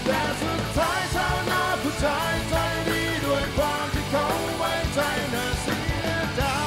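Male lead vocalist singing a Thai-language rock song with a live band behind him: drums, bass and guitars, recorded at a concert.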